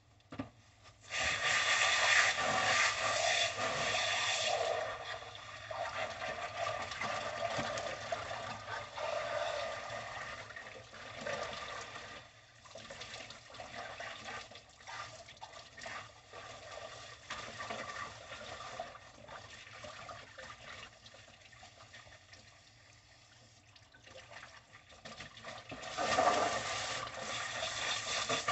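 Water from a garden hose rushing through and splashing out of a length of raw pig intestine as it is flushed clean. The flow starts about a second in and is loudest for the first few seconds, runs quieter through the middle, and comes back strong near the end.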